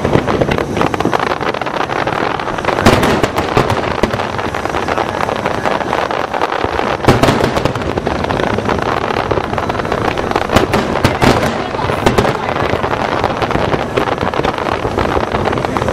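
Dense fireworks display: continuous crackling and popping of many shells going off together, with heavier bangs standing out now and then, the loudest about three seconds in and about seven seconds in.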